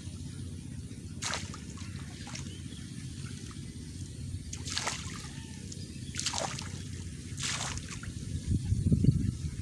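Small splashes and trickles of shallow water, about four brief ones a second or more apart, over a steady low rumble that grows louder near the end.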